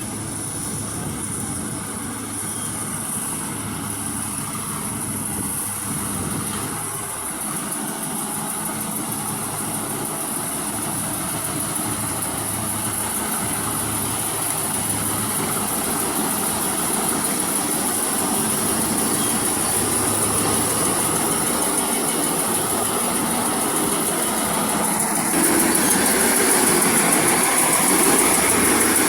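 Maxxi J rice combine harvester running, its engine and machinery a steady mechanical din with a high whine, growing gradually louder and stepping up again near the end.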